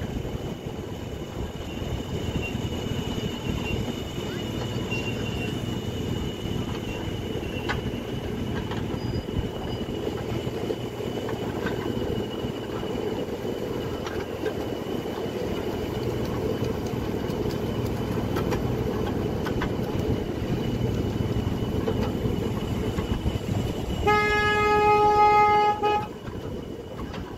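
Ride-on miniature train rumbling steadily along its track, with a faint high steady whine. Near the end a train horn sounds once, a single steady note lasting about two seconds.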